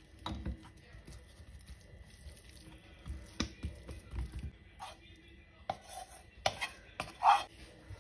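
Hands handling raw turkey breast on a wooden cutting board: soft slaps, taps and knocks at irregular intervals, with a short louder scrape near the end.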